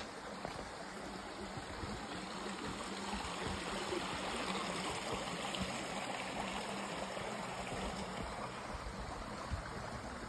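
Small forest creek running: a steady rush and trickle of water.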